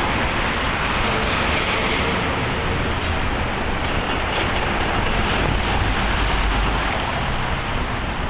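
Steady city din of traffic and heavy machinery, a continuous rumble and hiss with a deeper rumble swelling about six seconds in.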